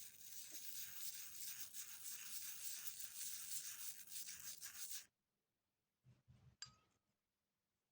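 A copper coin being scrubbed by hand: a rapid rubbing hiss lasting about five seconds that stops suddenly, followed by a few light clicks and taps.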